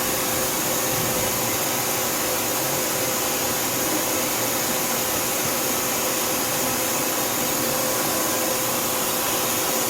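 Tsugami S206 CNC Swiss lathe running with a steady hiss and a faint, even whine.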